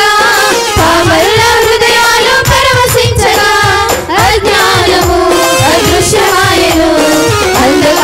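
A group of young women singing a Telugu Christian worship song together into microphones, over instrumental accompaniment with a steady percussion beat.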